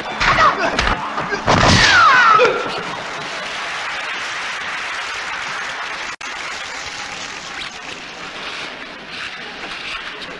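Film fight sound effects of punches and kicks landing, mixed with shouts, during the first three seconds. After that a crowd cheers and shouts steadily.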